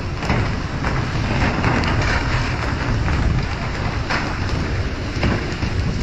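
Dense rush of wind and water spray on the deck of a pole-and-line fishing boat over a low engine rumble, with scattered short knocks as fish are jerked aboard.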